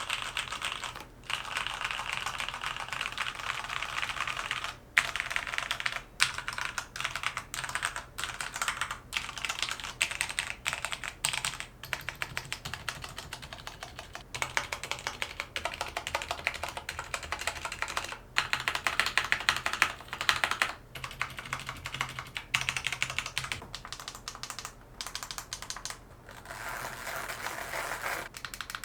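Fast continuous typing on a Mountain Everest Max mechanical keyboard with linear Cherry MX Red switches: a dense patter of key clacks with brief pauses, picked up by a camera-mounted microphone.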